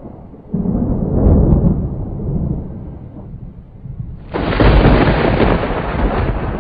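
Cinematic logo-intro sound effect: a deep rumble swells about half a second in and eases off, then a sudden boom about four seconds in opens into a loud noisy rush that slowly fades.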